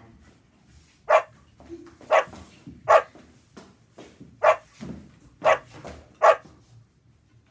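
Dog barking: six short, sharp barks at uneven intervals.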